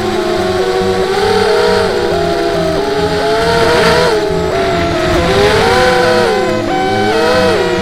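ImmersionRC Vortex racing quadcopter's brushless motors whining, the pitch gliding up and down with the throttle, heard from the onboard camera. Background music with a steady beat plays underneath.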